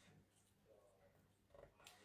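Near silence: faint rustling of paper flowers being pressed and arranged by hand on a card page, with a soft tap near the end.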